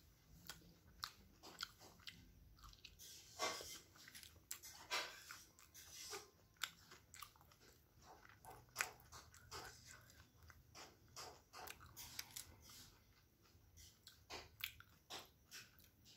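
A person chewing and biting soft chicken momos close to the microphone: a run of irregular wet mouth clicks and smacks, faint overall, with a few louder bites.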